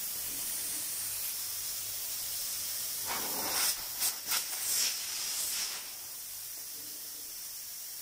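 Freon refrigerant gas hissing out of an open copper tube at a refrigerator's filter drier and capillary tube, a cleaning flush of the refrigeration circuit. The hiss is steady, with louder spurts between about three and six seconds in, over a low hum.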